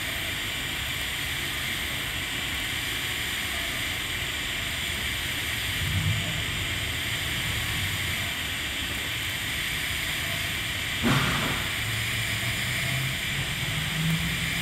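TIG welding arc on carbon steel pipe, a steady hiss as filler wire is dipped into the puddle on a root pass. A low hum comes and goes, and there is a sudden sharp sound about eleven seconds in.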